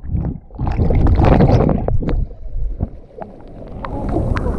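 River water sloshing and gurgling as heard by a submerged camera: muffled, with scattered sharp clicks. About four seconds in the camera comes up out of the water and the sound opens out into brighter splashing.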